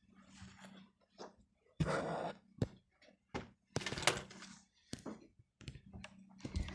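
Handmade paper gift packaging being handled and torn open: irregular crinkling and rustling with sharp crackles and a few knocks, the loudest bursts about two and four seconds in.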